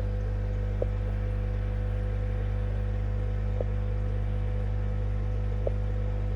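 Steady low hum of fish-room equipment, such as air pumps and filters, with a faint higher steady tone over it. Three faint clicks come about a second in, near the middle and near the end.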